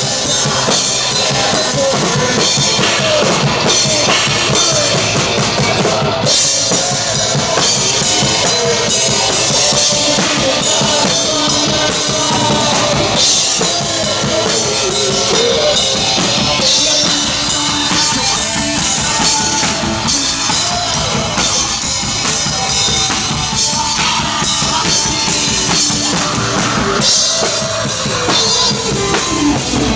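A heavy rock band playing loud and fast live, the drum kit to the fore with pounding bass drum, snare and dense cymbal hits.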